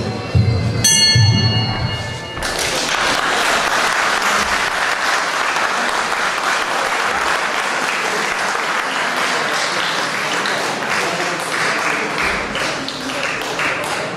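A short ringing tone about a second in, the bell that ends the round, followed by a crowd applauding steadily.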